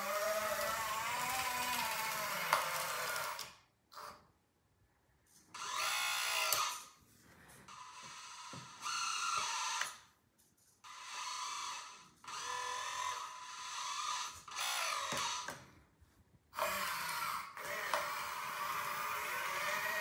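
Electric motors of an LXYRC 1/14 metal hydraulic tracked skid steer loader, its track drive motors and hydraulic pump motor, whining as it drives and works its arms; the pitch rises and falls with the throttle. The whine stops three times for about a second and starts again.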